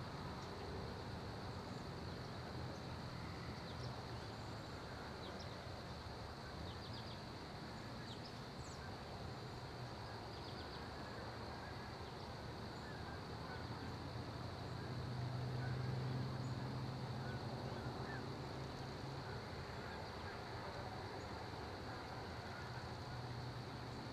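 Outdoor field ambience: a steady hiss under a constant high-pitched drone, a few faint short chirps in the first half, and a low rumble that swells and fades about fifteen seconds in.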